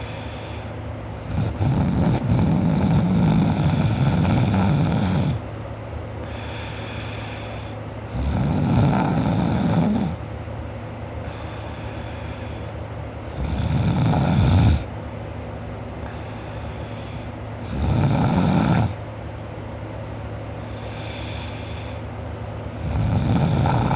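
A sleeping young man snoring: five loud snores about every four to five seconds, the first lasting about four seconds and the later ones one to two seconds, with quieter stretches between them over a steady low hum.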